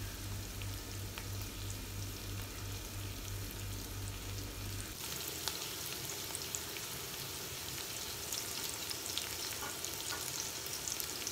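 Sliced red onions and minced garlic sizzling in hot oil in a stainless steel pot, with a steady fine crackle that grows brighter about halfway through. A low pulsing hum lies under the first half.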